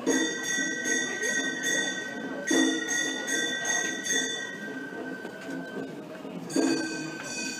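Gion-bayashi festival music: small brass kane gongs struck in a quick clanging rhythm, ringing, with fresh loud phrases at the start, about two and a half seconds in and near the end.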